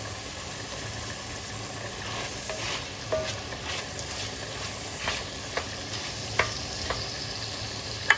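Seasoning frying in hot oil in a cooking pot: a steady sizzle, with a spoon stirring and clicking against the pot several times.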